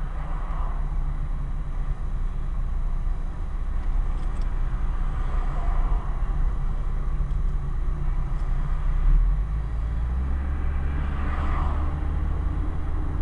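Steady low rumble of a car's engine and tyres heard from inside the moving car's cabin, the low hum growing a little stronger about ten seconds in.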